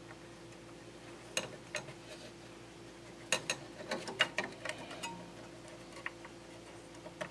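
Light clicks and taps of small metal parts being handled and fitted together on a Gottlieb score reel decagon assembly, coming in scattered clusters over a faint steady hum.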